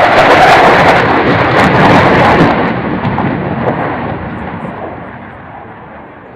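Panavia Tornado GR4 jet flying past with its twin RB199 turbofans, a loud crackling roar. It fades steadily after about two and a half seconds as the jet moves away.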